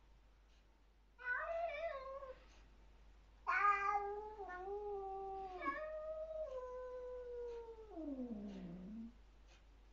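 Domestic cat yowling at another cat in a territorial standoff, a warning that the other cat is not welcome. First a short wavering yowl about a second in, then a long drawn-out yowl from about three and a half seconds that slowly sinks in pitch and slides lower near the end.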